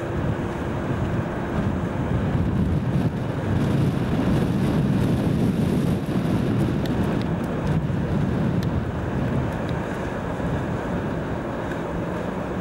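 Class 37 diesel locomotive engine running as the locomotive moves along the line. The rumble is loudest a few seconds in, then eases, mixed with wind noise on the microphone.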